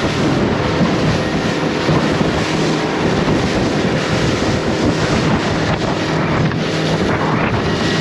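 A 20 ft panga boat's motor running steadily under way, with wind buffeting the microphone and water rushing past the hull.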